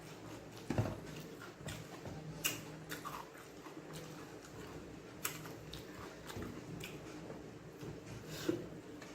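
A person chewing and eating chicken fried rice and egg podimas, with scattered short, sharp mouth clicks a second or more apart over a low steady hum.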